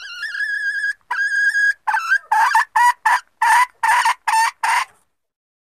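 Junglefowl hen calling, a lure call used to draw wild junglefowl cocks: two long drawn-out notes, the first rising in pitch, then a quick run of about eight short notes that stops about five seconds in.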